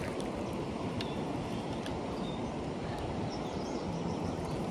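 Steady roar of fast water running through the rapids below a dam, with no change over the few seconds.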